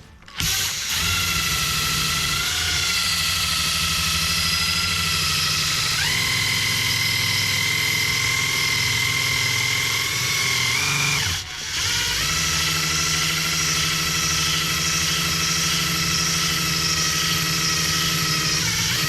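Small electric power tool motor running at a steady speed with a whining hum; its pitch steps up about six seconds in, then it stops briefly and starts up again.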